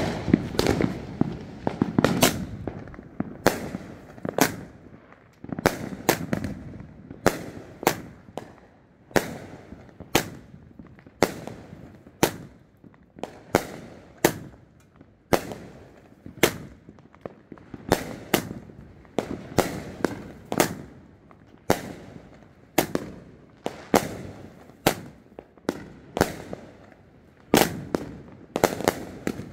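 Shogun Fireworks Crown Jewels 500-gram firework cake firing a long volley of shots: sharp bangs of launches and aerial bursts, about one to two a second, some in quick pairs.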